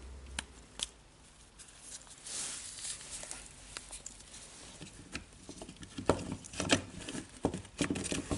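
Small plastic and metal parts of a cordless drill's gearbox clicking and tapping as they are handled and fitted together by hand, mounting the speed-change selector on the gear housing. Scattered single clicks with a soft rustle about two seconds in, then a quicker run of clicks and knocks near the end.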